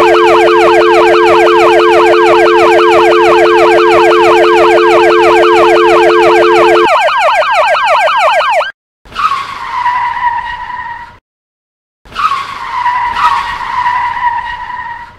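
Emergency-vehicle siren sound effects: a loud, fast yelp siren, its pitch sweeping down several times a second, over a steady low two-note hum that stops about seven seconds in. The siren cuts off near nine seconds, and two separate held tones of about two seconds each follow, each dipping slightly in pitch at the start.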